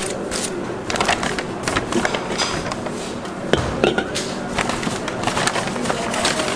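Aluminium foil crinkling and crackling as it is handled and folded by hand, with irregular sharp clicks throughout.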